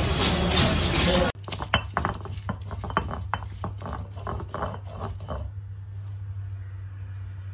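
Stone roller rolled and pressed over garlic cloves on an ammi grinding stone, crushing them in a run of knocks and scrapes, about three a second, that grow fainter near the end, over a low steady hum. It opens with about a second of loud, dense noise that cuts off abruptly.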